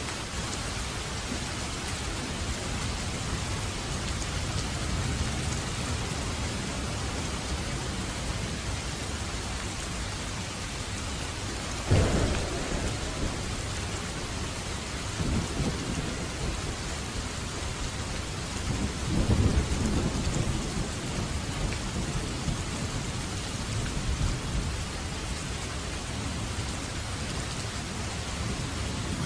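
Heavy rain falling steadily, with a sharp thunderclap a little before the middle, then low rolling thunder rumbles.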